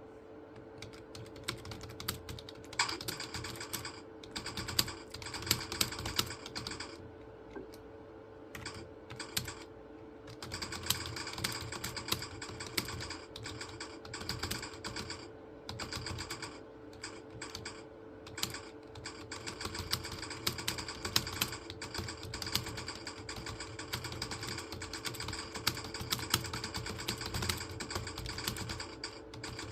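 Fast typing on a computer keyboard: rapid runs of key clicks broken by short pauses, with a steady low hum underneath.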